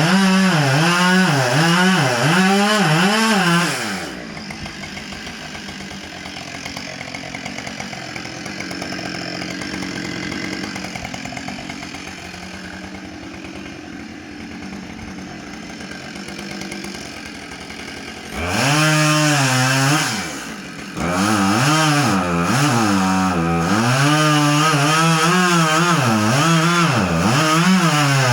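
Husqvarna chainsaw cutting wood, its engine pitch rising and sagging as the chain bites. After about four seconds it drops to a quieter, steady running. From about eighteen seconds it is back up at full speed and cutting again, with one brief let-off.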